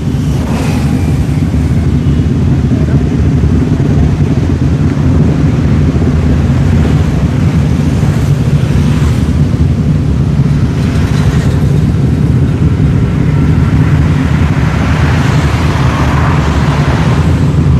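Many motorcycle engines running together at low revs as a group of riders waits to move off. The noise is steady and swells louder a few times, most strongly about 15 to 17 seconds in.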